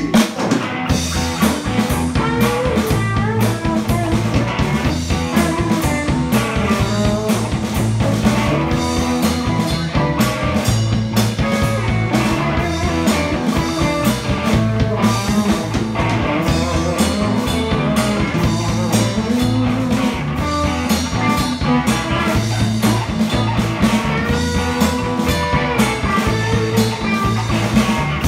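A live band playing rock music: electric guitar over a steady drum-kit beat. The drums come in right at the start.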